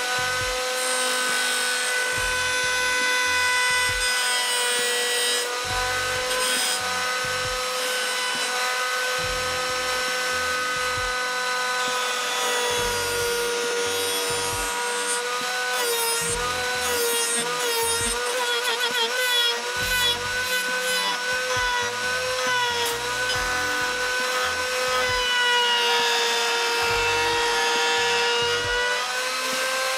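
Table-mounted router spinning a bearing-guided flush-trim bit with a steady high whine, while wood is fed past and trimmed against a template. Through the middle the whine sags and wavers as the bit takes the cut.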